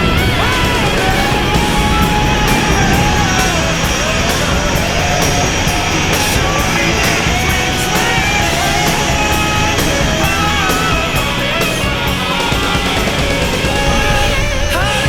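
Loud rock music soundtrack with electric guitars, a driving drum beat and a singing voice.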